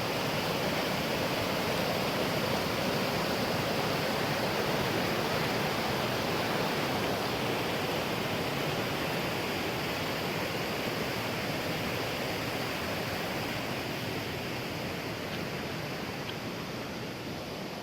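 Steady rushing noise of flowing water, even and unbroken, easing off slightly in the last few seconds.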